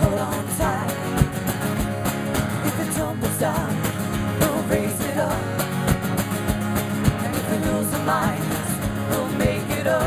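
Live band playing a song: two acoustic guitars strumming under a drum beat, with women's voices singing over them.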